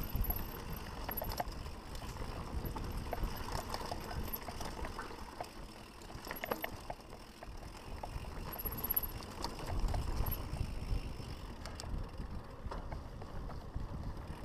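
Mountain bike rolling fast downhill on dirt singletrack: tyre noise and wind rumble on the bar-mounted microphone, with scattered rattles and knocks from the bike over bumps.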